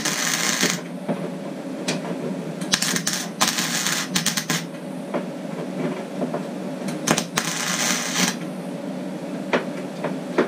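MIG welder arc crackling in several short bursts of about a second each, tack-welding to fill holes in the thin sheet steel of an old truck door's lower edge. Sharp clicks fall between the bursts over a steady low hum.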